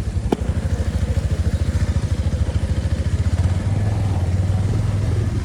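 Motorcycle engine running steadily in fast, even low pulses, with one sharp click near the start.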